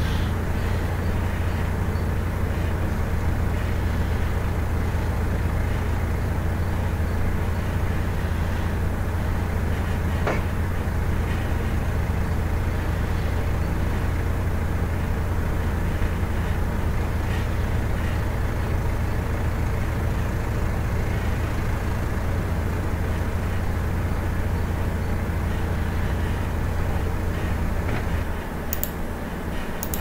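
Ford 555E backhoe loader's diesel engine running steadily while the machine is driven and turned. Near the end the engine sound drops briefly, with a couple of sharp clicks.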